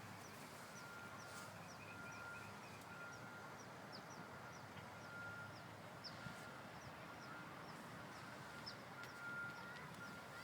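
Faint outdoor birdsong: short, high, falling chirps repeated every second or so, with a short steady note sounding again and again, over a steady background hiss.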